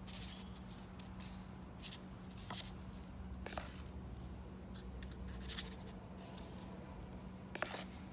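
Spoon scraping muffin batter out of a plastic mixing bowl and dropping it into paper liners in a metal muffin pan: scattered short scrapes and soft clicks, the loudest about five and a half seconds in, over a steady low hum.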